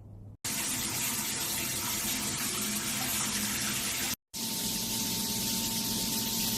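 Shower head spraying a steady stream of water, a loud even hiss with a faint steady hum under it, broken by a brief silence about four seconds in.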